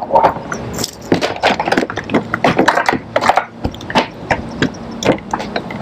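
Rod, reel and plastic kayak handling noise while a topwater popper is worked back: a run of irregular sharp clicks and knocks, about three a second.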